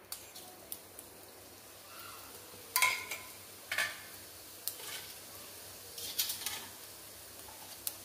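Fennel seeds sizzling in hot oil in a small kadai as a tempering, with a faint steady hiss and scattered sharp pops and clicks as the seeds start to splutter. The loudest is a short metallic cluster about three seconds in.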